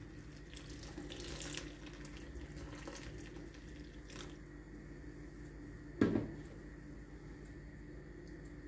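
Boiling water poured from an electric kettle over whole tomatoes in a bowl, a steady pour that stops about four seconds in; scalding the tomatoes so their skins slip off. A single thump about six seconds in.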